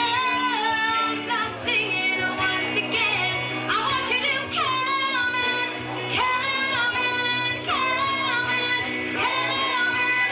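A woman singing long held notes with vibrato over musical accompaniment.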